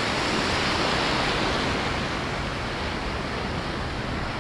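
Ocean surf breaking and washing up a sandy beach in a steady rush.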